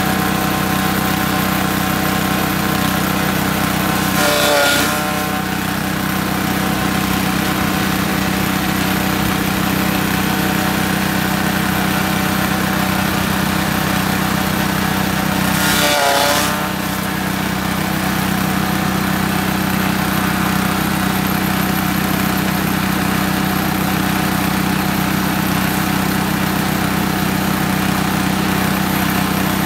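Small engine running a belt-driven straw chopper steadily while bundles of rice straw are fed in. Twice, about four seconds in and again about sixteen seconds in, the sound surges and drops in pitch for a moment as the load comes on, then settles back.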